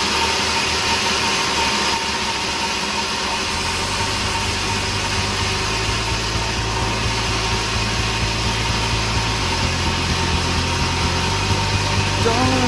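Sawmill running: loud, steady machine and saw noise over an engine hum, the low hum growing heavier a few seconds in.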